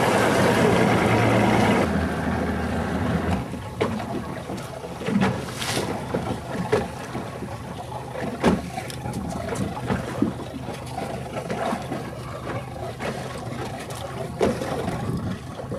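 A motorboat engine runs steadily, then fades away about two to three seconds in. After that, small waves slap and splash against a boat hull, with wind on the microphone.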